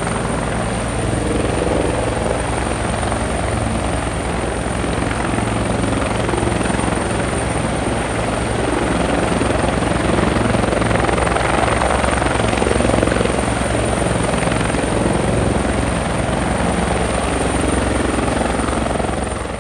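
Helicopter landing close by, its rotor blades chopping steadily over a constant high whine.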